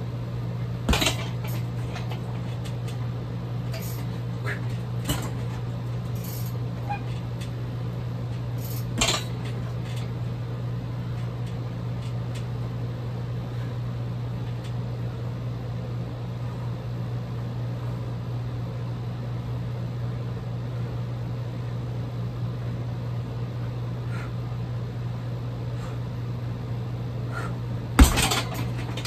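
A few sharp thuds of kicks landing on a heavy bag: one about a second in, a stronger one around nine seconds, and the loudest near the end, with fainter knocks between. A steady low hum runs underneath.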